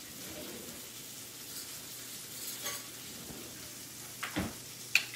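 Hanger steak frying in butter in a pan, a steady faint sizzle. Near the end come a few sharp clicks, a spoon against a glass bowl.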